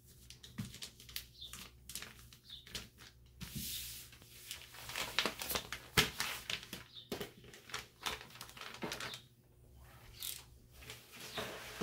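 Paper rustling and crinkling as large sheets of butcher paper and transfer paper are handled and smoothed flat on a table, with scattered light taps and one sharp click about halfway through.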